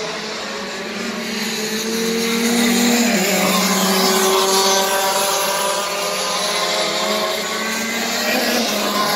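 Several racing karts' engines running at high revs together, their pitches rising and falling as the drivers accelerate and lift off through the corners, with one engine dropping sharply in pitch about three seconds in. Loudest a few seconds in as the karts come nearer.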